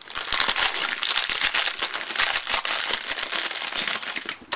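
Clear plastic bag crinkling and crackling as a replacement camera lens unit is pulled out of it, stopping shortly before the end.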